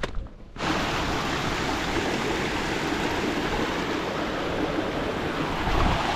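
Mountain stream rushing over rocks in a small cascade, a steady full rush of water that starts suddenly about half a second in.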